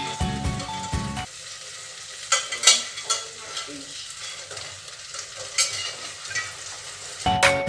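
Fish frying in a pan of spiced tomato gravy, sizzling steadily while a spoon stirs it, with a few sharp knocks of the utensil against the pan.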